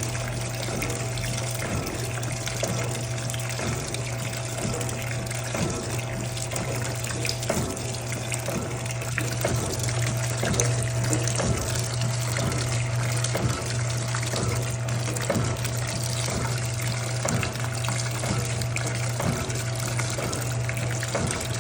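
Electrolux LPE16 washing machine filling with water: a steady rush of water into the tub over a constant low hum.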